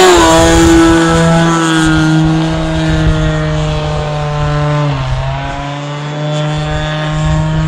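Radio-controlled model airplane's motor and propeller buzzing as it flies by. The pitch drops sharply as it passes, once near the start and again about five seconds in.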